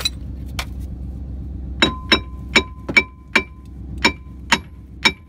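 Metal hammer blows on a seized steel brake rotor: a couple of strikes, then a run of about nine coming roughly two a second. Each blow is a sharp clank with a bright ring that hangs on briefly. A low steady hum runs underneath.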